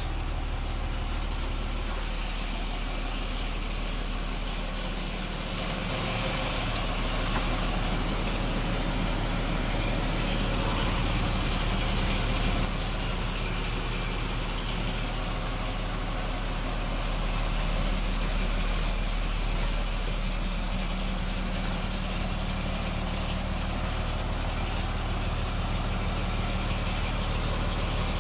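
1999 Blue Bird TC2000 front-engine school bus engine idling steadily, with a hiss in the upper range that swells and fades a few times.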